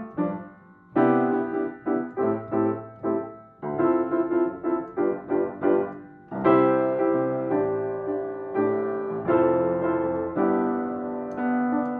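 Background piano music: a gentle melody of struck notes that each fade, with fuller, longer-held chords in the second half.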